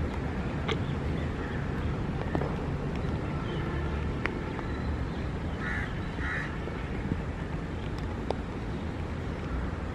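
Steady low outdoor rumble with a few scattered sharp ticks, and two short bird calls a little past halfway.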